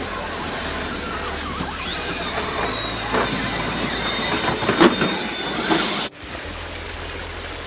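Electric RC rock crawler's motor and gearing whining with a steady high tone as it climbs rock, with scattered knocks and scrapes of its tyres and chassis on the stone. The whine cuts off suddenly about six seconds in, giving way to a softer, steady rush of a stream.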